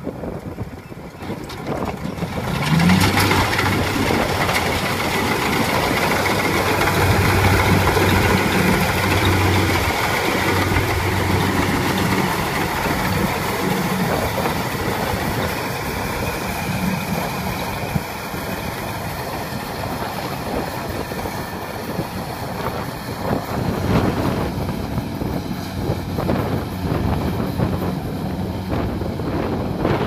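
Kubota rice combine harvester working in the field: a steady diesel engine drone under a dense mechanical din from the harvesting machinery. It gets much louder about two and a half seconds in.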